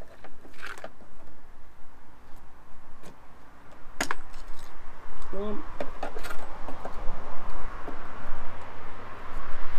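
Scattered light clicks and clinks of a hand tool working the plastic retaining clips under a car's front bumper, with one sharper click about four seconds in. A background hiss grows louder in the second half.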